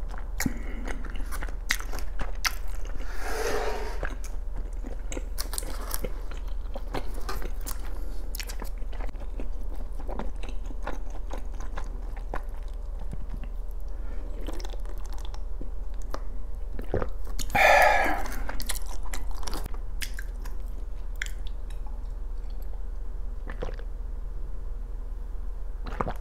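Close-miked eating sounds: chewing with wet mouth clicks and lip smacks, and sips of eomuk (fish-cake) broth drunk straight from a plastic container. A louder mouth sound comes about two-thirds of the way in.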